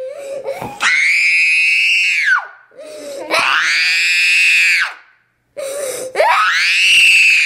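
Young girl screaming in a tantrum: three long, high-pitched screams, each rising at the start and falling away at the end, with shorter, lower sobbing cries between them.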